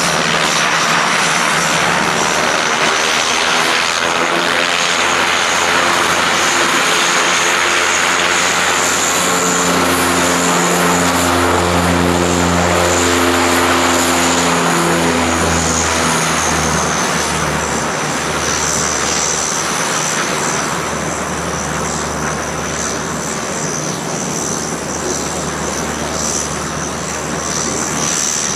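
Antonov An-26's two Ivchenko AI-24 turboprop engines running as it taxis: a steady high turbine whine over a low propeller drone that pulses unevenly. It eases a little past halfway.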